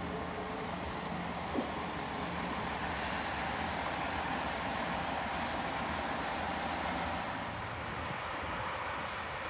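Networker Turbo diesel multiple unit drawing into the platform: a steady rumble of its diesel engines and wheels on the rails, with one brief sharp sound about a second and a half in.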